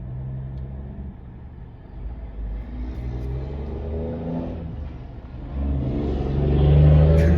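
A truck engine running and accelerating. Its pitch climbs about three seconds in, then climbs again and grows louder, loudest near the end.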